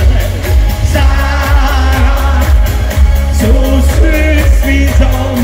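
Live German Schlager song playing loudly over a PA, with a steady heavy bass beat and a male voice singing the melody, most clearly from about three and a half seconds in.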